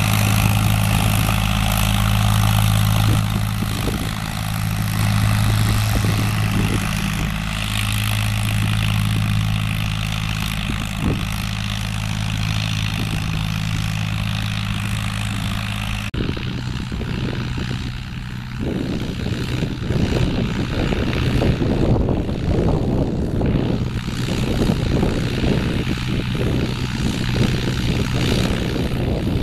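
Fiat 450 tractor's diesel engine running steadily under load while pulling a seed drill. About halfway through, the sound changes abruptly to a more distant engine note with a rushing noise over it.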